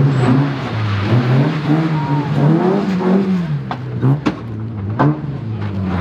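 Classic rally car engine revving up and easing off again and again as it is driven hard, its pitch rising and falling. A few sharp cracks stand out about four and five seconds in.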